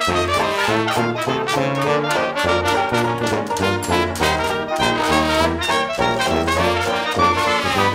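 Upbeat swing-style dance music led by brass, trumpets and trombones, over a steady beat and a strong bass line.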